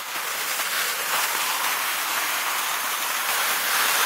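Skis sliding over snow: a steady scraping hiss that gets a little louder in the first second.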